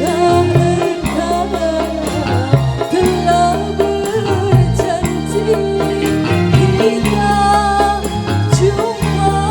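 Live dangdut band playing loudly through a large PA sound system, with a wavering sung melody over steady bass and percussion.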